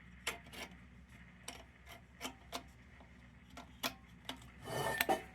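Light metal clicks and taps as parts of an old kerosene lantern's crown cap are worked into place, about a dozen irregular clicks, then a brief scraping rub near the end.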